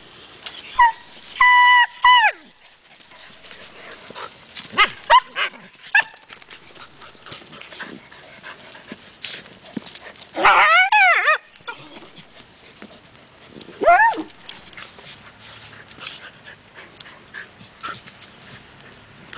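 Borzoi puppies whining and yelping in play: high whines near the start, a loud cluster of yelping whines about ten seconds in and one more rising-and-falling whine a few seconds later. Between them, short scratching and rustling of paws digging in dry earth.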